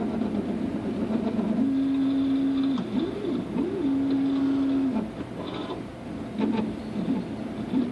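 Stepper motors of a Stratasys uPrint 3D printer humming as the print head moves: a steady tone that steps up in pitch, sweeps up and down a few times, then holds again before dropping to a softer hum with short sweeps near the end.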